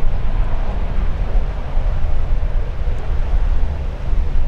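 Wind buffeting the microphone: a heavy low rumble that gusts up and down, with a steady rushing noise above it.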